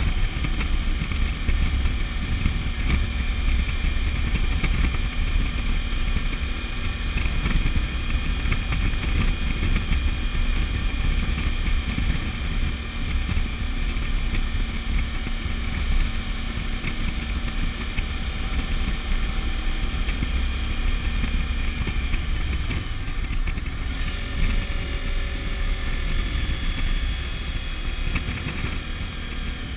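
Suzuki V-Strom DL1000's V-twin engine running steadily at road speed, heard under a constant low wind rumble on the bike-mounted camera's microphone.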